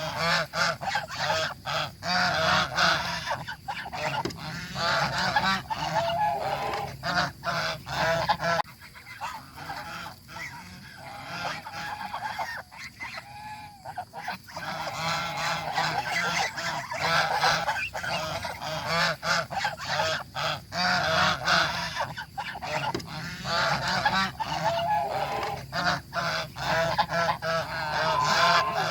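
A flock of domestic geese honking, many calls overlapping in a busy chorus that eases off for a few seconds about a third of the way in.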